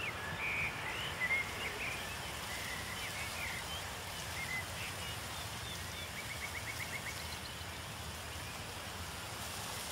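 Outdoor ambience with small birds chirping over a steady low background noise, including a quick trill of about eight notes a little past the middle.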